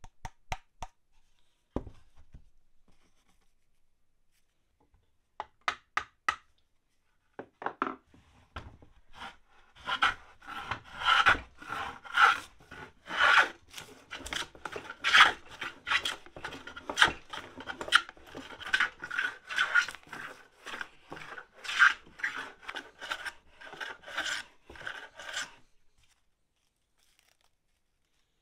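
Marples wooden jack plane being pushed along a board, its iron shaving the wood in repeated scraping strokes. A few separate strokes come first, then a steady run of quick strokes, a little more than one a second, which stops a few seconds before the end.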